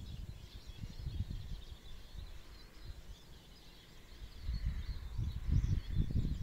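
Wind rumbling irregularly on the microphone, in gusts that grow stronger about two-thirds of the way through, with small birds chirping faintly above it.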